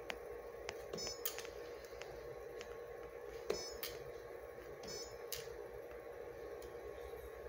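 Quiet steady hum with scattered soft clicks from the ultrasound console's controls as measurements are taken, and twice a short high beep.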